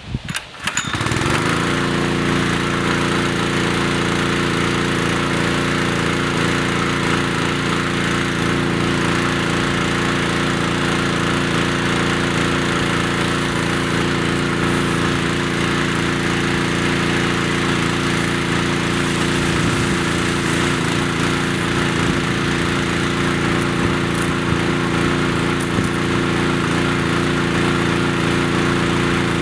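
Honda GX160 single-cylinder four-stroke engine on a sprayer, starting up and settling into a steady run about a second in. It then runs evenly, driving the sprayer's pump.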